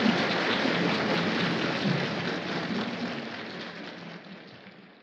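Large audience applauding, a dense, even clatter of clapping that fades out over the last two seconds.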